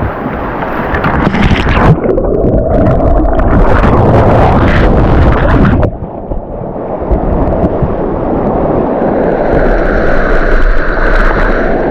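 Loud rushing of fast river water, with wind buffeting the microphone. The sound turns muffled about two seconds in, then changes again about halfway through.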